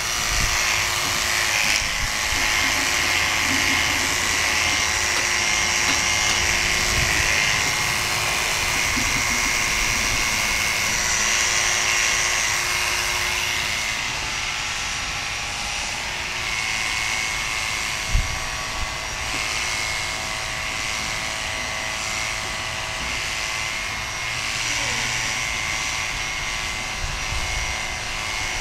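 Corded electric horse clippers running with a steady motor hum as they trim the hair on a horse's head around the ears and forelock. A single short knock comes about two-thirds of the way through.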